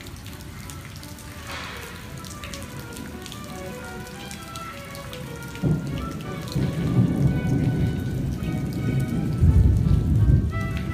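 Rain falling, with a deep rumble of thunder building from about halfway through. Soft music with held notes plays underneath.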